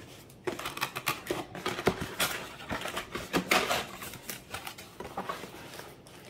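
Cardboard packaging being handled: a cardboard insert slid and lifted out of a box, with irregular scrapes, taps and rustles, then hands touching the bubble wrap inside.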